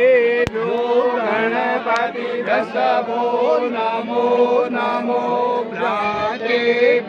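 Several voices chanting together over a steady held drone, with one sharp crack about half a second in.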